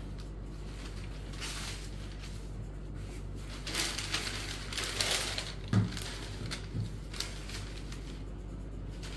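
Rustling of a cotton saree and folded paper leaflets being handled, in a few bursts, with two soft thumps near the middle, over a low steady hum.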